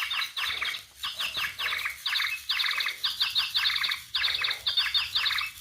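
Flutter Friends electronic toy hummingbird chirping from its small speaker. It plays quick runs of falling chirps with short gaps between the runs.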